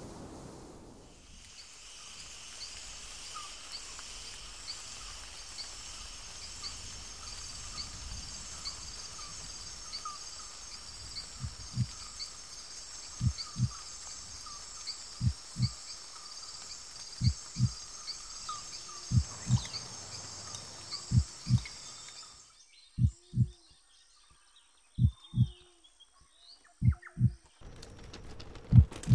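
Forest ambience: a steady high chorus of chirping calls repeating a couple of times a second. From about halfway, deep double thumps in a slow heartbeat rhythm come in about every two seconds and grow louder. Near the end the chorus cuts out and leaves only the thumps.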